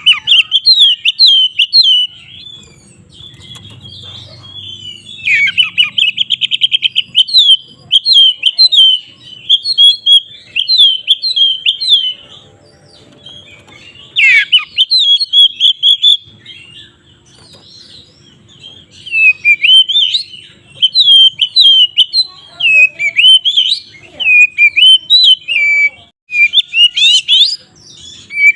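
Oriental magpie-robin (kacer) singing loudly in long phrases of quick, sharply gliding whistled notes. There is a fast rattling trill about five seconds in, and short pauses between phrases.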